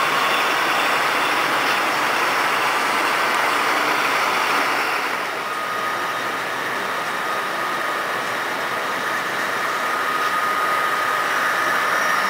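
HO scale model trains running past close by on a layout: a steady running noise over the hall's background hubbub, with a thin steady tone coming in about five seconds in.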